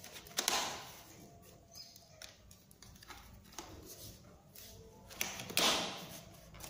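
Handling noise of packaging and parts being worked by hand: a few light clicks and two short rustles, one about half a second in and a louder one about five and a half seconds in.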